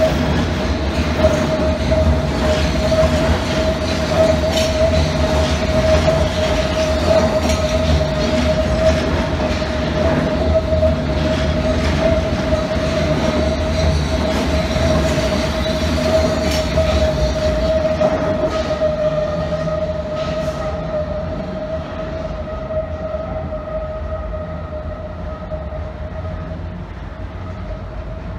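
London Underground S-stock train pulling out of the platform: wheels clicking over the rail joints under a steady high whine. The sound fades over the last ten seconds as the train draws away into the tunnel.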